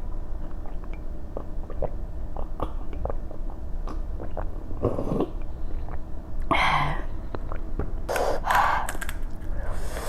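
Close-up mouth sounds of someone eating very spicy panipuri: small wet clicks and chewing, then several breathy rushes of air in the second half, the sharp breaths of a mouth burning from chilli.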